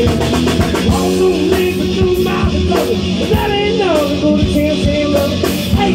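Live rock band playing a loud, driving passage: electric guitars, bass guitar and a drum kit, with bending pitched lines over a dense drum beat.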